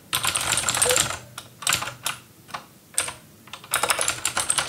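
Typing on a computer keyboard: quick runs of key clicks in bursts, with short pauses between them.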